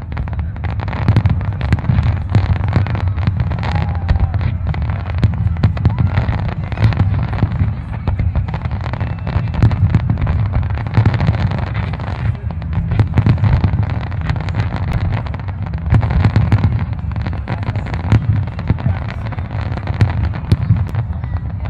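Aerial fireworks display: a dense, unbroken barrage of shell bursts and crackle, many bangs overlapping over a low rumble.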